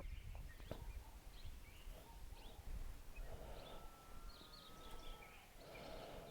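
Faint background with scattered short bird chirps and one thin whistled note held for about a second and a half near the middle, plus a small click early in.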